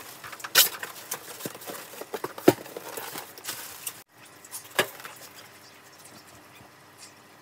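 Clear plastic wrapping crinkling and rustling as a spin bike is pulled out of it, with a few sharp knocks from the bike's frame. About four seconds in the sound drops off abruptly, leaving one more knock and then quieter room sound.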